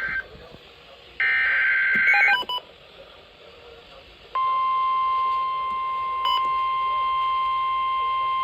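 NOAA Weather Radio alert signals: two short, buzzy SAME digital header bursts, then about four seconds in the steady 1050-hertz warning alarm tone starts and holds. The sequence announces a new warning message about to be read.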